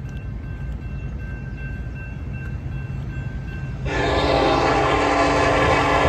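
A low rumble with a faint crossing-signal bell ringing. About four seconds in, the approaching Norfolk Southern SD70ACE locomotive starts blowing its multi-chime air horn, suddenly and loudly, and holds it.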